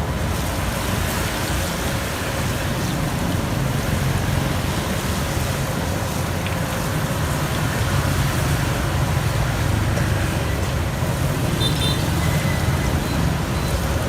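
Steady city street traffic: road vehicles passing with a continuous low rumble and hiss.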